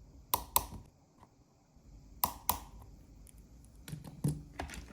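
Torque screwdriver tightening tiny screws in an iPhone, giving sharp clicks in quick pairs, twice, then a short run of lighter clicks and taps near the end.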